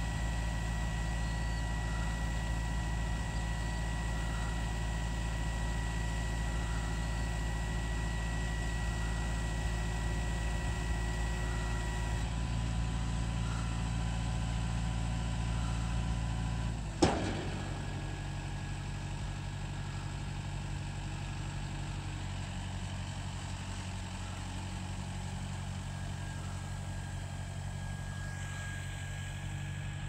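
Kubota M7060's four-cylinder diesel engine running steadily with a Hesston 5800 round baler behind it. A thin steady whine stops about two-fifths of the way through. A little past halfway there is one sharp metallic bang, the loudest sound, with a brief falling ring.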